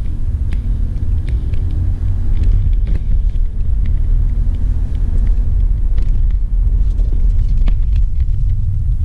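Steady low rumble of engine and road noise inside a moving 2006 Toyota Avalon with a V6, with a few small clicks and rattles over it.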